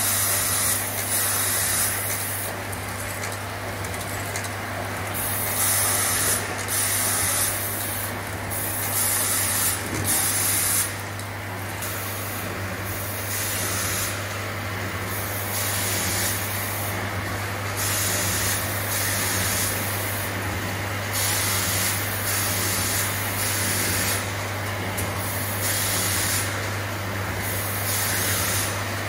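Automatic cartoning machine running, boxing cream tubes: a steady low hum under short hisses of air repeating about every second or two.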